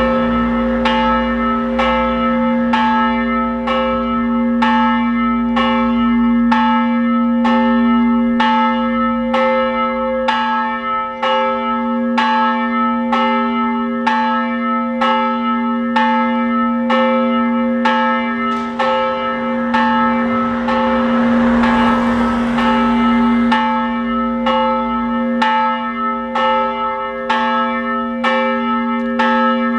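The large church bell swinging and ringing the noon bell, its clapper striking about once a second over a steady lingering hum. A brief rushing noise swells about two-thirds of the way through.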